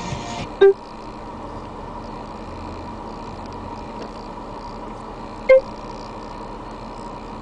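Two short, loud beeps from the Pioneer AVIC-X930BT touchscreen head unit, the key-press tones as its buttons are pressed to change source: one just under a second in and another about five seconds later. Music from the unit cuts off just before the first beep, leaving a steady background hiss.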